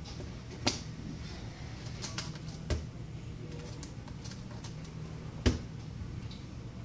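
Scattered light clicks and taps of small tools and parts being handled, with three sharper knocks about a second in, near the middle and near the end, over a steady low hum.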